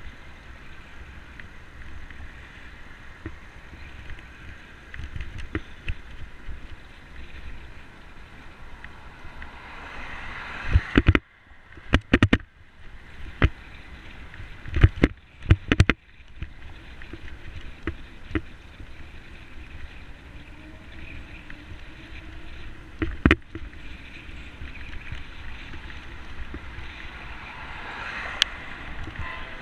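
Wind rumble and hiss on a bicycle-mounted action camera while riding, with sharp knocks and clatters as the bike jolts over bumps, a cluster of them from about eleven to sixteen seconds in and another near twenty-three.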